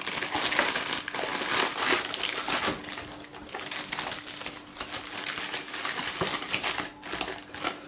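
Clear plastic bags of model-kit sprues crinkling and rustling as hands pack them into a cardboard box.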